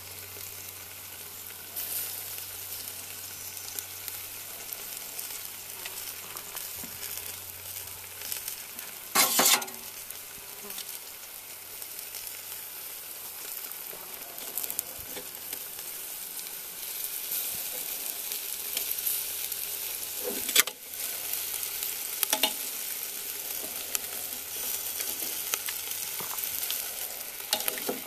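Beef ribs sizzling on a grill over hot charcoal briquettes in a cast iron camp oven as barbecue sauce is brushed on: a steady crackling hiss. A few sharp knocks cut through it, the loudest about nine seconds in.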